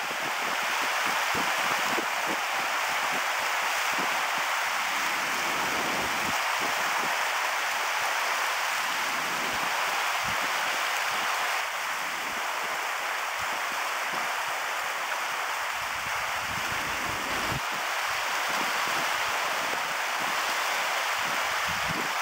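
Fast-flowing creek water rushing over rocks and riffles: a steady, even rushing hiss, with occasional short low rumbles on the microphone.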